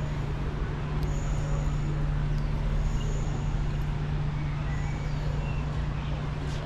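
Steady vehicle rumble with a constant low hum, and faint brief high squeals about every two seconds.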